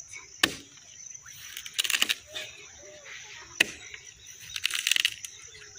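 Axe blows into a hard, dry eucalyptus log being split for firewood: two sharp chops about three seconds apart, the second louder, with short crackly rattles between them. A steady high insect whine runs behind.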